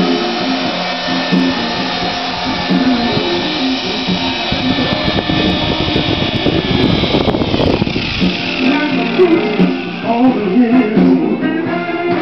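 Small electric RC toy helicopter whirring as it hovers and comes in to land, with a rush of rotor wash on the microphone from about 4.5 to 8 seconds in as it passes close. Music plays alongside.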